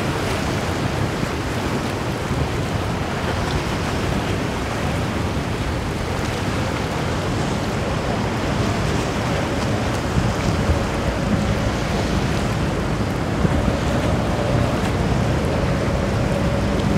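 Surf and wind rushing on the microphone, steady throughout, with the low drone of a motorboat's engines coming up under it from about eleven seconds in.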